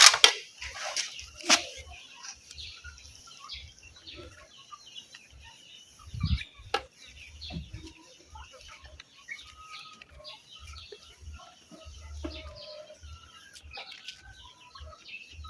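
Chickens clucking and calling in short scattered notes, with a few sharp knocks and clicks about a second and a half in and again around six seconds in.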